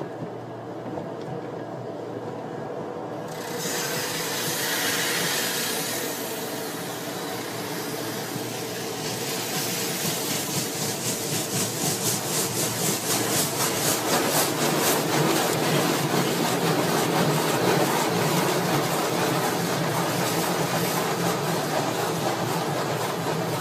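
Automatic car wash working over a car, heard from inside it: a hiss of spraying water starts about three seconds in, then rubbing and scrubbing that grows louder, with a fast, even rhythm from about ten seconds in.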